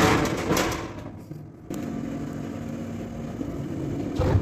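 A large gas stove burner lit about two seconds in, then running steadily with a low hum, under a big aluminium cooking pot. Clattering handling noise at the start and a metal knock near the end.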